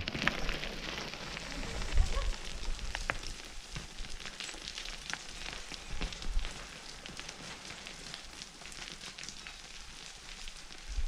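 Footsteps scrambling over loose rock and scree, small stones clicking and crunching underfoot in a steady crackle, with a few low thumps.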